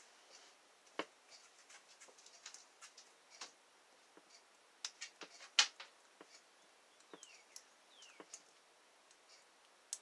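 Steel lock pick scraping and clicking against the pins in the 6-pin core of a Master Lock Pro Series padlock held under tension: faint, irregular ticks and scratches, with the loudest cluster of clicks about five to six seconds in.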